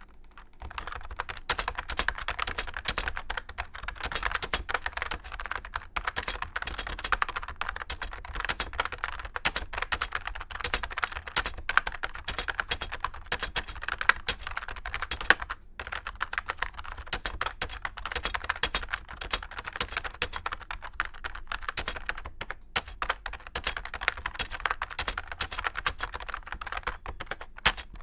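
Fast, continuous touch typing on a Unicomp Model M rubber dome keyboard (model 58036). The very tactile, stiff domes bottom out hard, giving keystrokes that are louder than on a usual rubber dome board and atypically full and deep. The typing pauses briefly twice.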